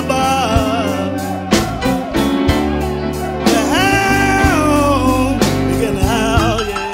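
Blues band instrumental break: an electric guitar plays a lead of long, bending notes over bass and a steady drum beat.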